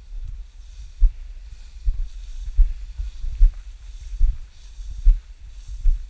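Footsteps walking through tall dry grass: a dull thud about every eight-tenths of a second, with grass brushing between steps.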